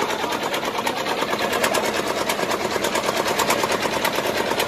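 Small engine running steadily with a rapid, even chugging beat.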